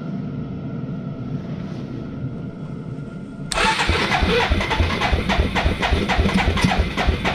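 Suzuki 230 ATV engine starting up and running with a steady low rumble. About three and a half seconds in, loud music with a steady drum beat comes in over it.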